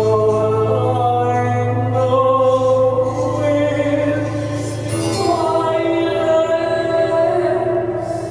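A woman singing long, slow sustained notes live over a low steady drone, in two phrases, the second beginning about five seconds in.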